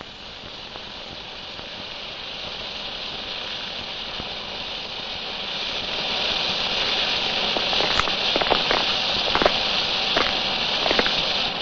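A fire burning with a steady hiss that grows louder, joined by sharp crackles and pops from about eight seconds in.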